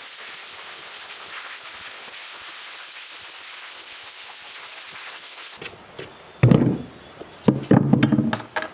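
Abrasive blasting gun hissing steadily as it strips rust from the machine's steel frame. It stops abruptly about five and a half seconds in, and a few loud knocks follow as metal motor parts are handled on a wooden table.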